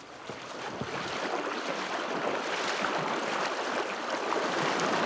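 Creek water running steadily, building up over the first second and then holding even.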